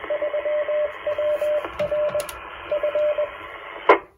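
Icom IC-9700 transceiver's speaker playing a repeater's Morse code identification: a single tone keyed in dots and dashes over a hissy FM signal. Just before the end a loud click, and the audio cuts off.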